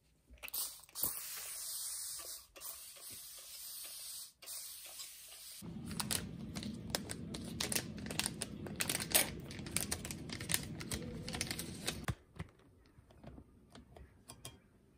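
A spray bottle misting houseplants, a steady hiss with two short breaks. About five and a half seconds in it gives way to liquid splashing in a glass cup, with many light clinks, stopping about twelve seconds in. A few faint clicks follow.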